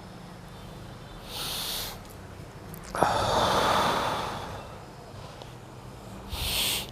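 A person breathing deeply and noisily: a hissing breath in, a long forceful breath out that starts suddenly about three seconds in and fades away, then another hissing breath in near the end.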